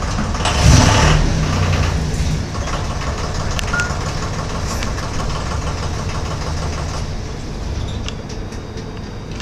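Valley Beaver tow tug running as it backs up and comes to a stop, with a louder surge about a second in and a single short reversing beep a few seconds in. The engine then runs steadily and grows quieter near the end.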